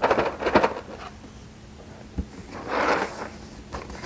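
Packaging being handled: a scraping rustle at the start and a longer one around three seconds in, like a box being slid and turned over in the hands.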